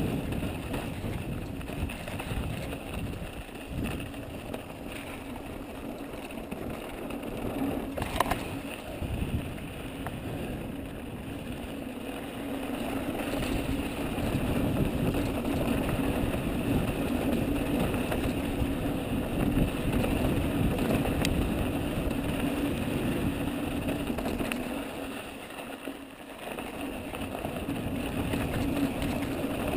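Ibis Mojo HD mountain bike rolling down a loose dirt and gravel trail: a steady rumble of tyres over the dirt and the bike rattling, rising and falling with the terrain, with a sharp knock about eight seconds in.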